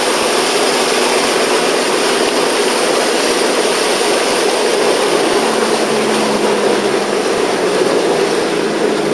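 4x4 vehicle wading through a flooded track, heard from inside the cab: its engine runs steadily under a constant rushing noise, with no let-up.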